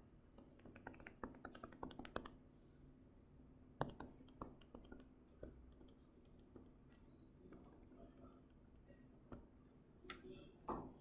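Faint, scattered taps and clicks of a stylus on a pen tablet as handwriting is written, coming in short clusters with quiet gaps between.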